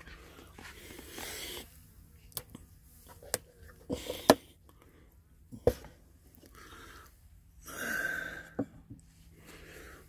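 Handling noise at a wooden beehive: scattered sharp clicks and knocks, the loudest about four seconds in. There are two spells of breathy hiss, one about a second in and a longer one about eight seconds in.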